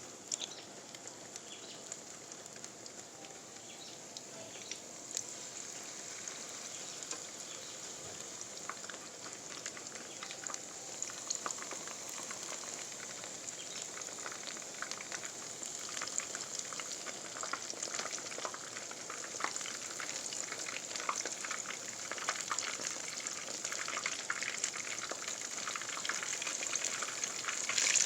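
Food deep-frying in hot oil: a steady sizzle with crackling pops that grow busier and louder from about eight seconds in.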